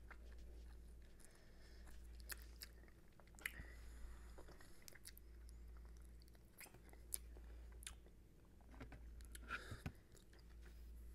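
Faint chewing and wet mouth clicks from eating saucy chicken wings and sucking the sauce off the fingers, with a scattering of soft clicks spread through.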